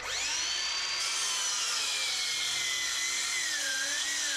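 Electric power saw cutting into a wooden 6x6 post to make a notch. The motor starts with a high whine whose pitch sinks from about a second in and wavers as the blade bites into the wood.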